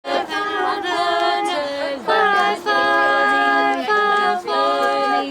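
A small group of voices, women's among them, singing unaccompanied, holding long notes at several pitches at once.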